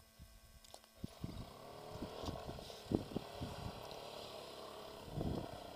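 Engine of a homemade 4x4 quad bike running, coming in about a second in, mixed with irregular low thumps.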